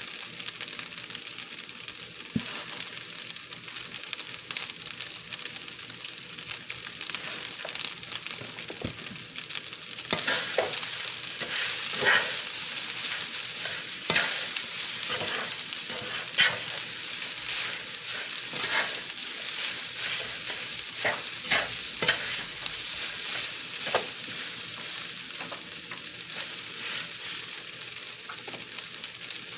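Food sizzling as it fries in a pan while being stirred. The sizzle grows louder about a third of the way in, with repeated sharp scrapes and clinks of the stirring utensil against the pan through the middle.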